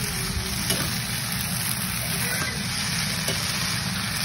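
Rice noodles, meat and vegetables sizzling in a nonstick frying pan as they are stir-fried with a slotted spatula, with a few faint scrapes and taps of the spatula against the pan.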